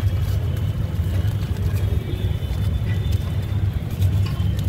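Steady low rumble of street background noise, with a few faint light clicks over it.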